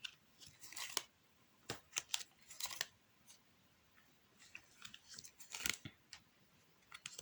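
Playing cards being handled and laid down: a scattering of soft clicks and quick swishes, with a cluster about two seconds in and another near the end.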